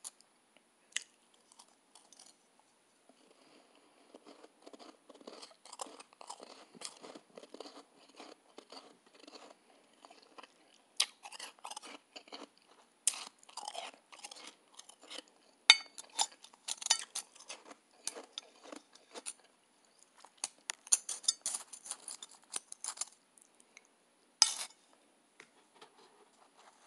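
Close-up chewing of soft, snow-like ice: irregular crisp crunches and crackles, sparse at first and dense from about four seconds in, with a few sharper, louder crunches scattered through.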